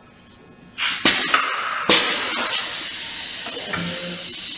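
Truck air brake dash control valves, the yellow parking brake and red tractor protection knobs, pushed in with two sharp clicks about a second apart. Then a steady hiss of compressed air that slowly fades as the tractor and trailer parking brakes release.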